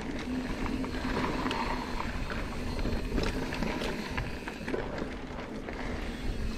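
Mountain bike rolling over a dry dirt and loose-rock trail: a steady rumble of tyres on gravel and the bike rattling, with scattered small clicks.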